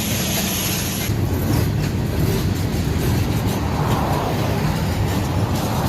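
A train rolling past on the rails with a continuous rumble. The sound changes abruptly about a second in. No horn is clearly sounding.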